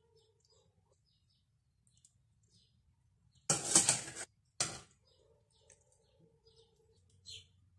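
Metal slotted spoon clattering and scraping against a stainless steel pot for most of a second about halfway through, then one more short knock, while cooked chicken is lifted out. Faint small clicks and taps of the utensil come before and after.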